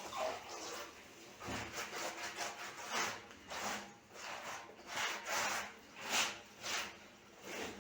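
Hand scraping against a concrete well wall while its seams are being repaired: a run of rasping strokes, roughly two a second, starting about a second and a half in.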